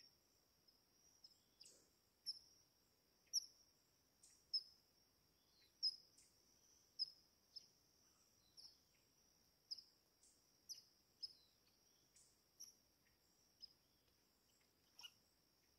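Steady high-pitched drone of insects, with short sharp chirps repeated about once a second, some louder than others.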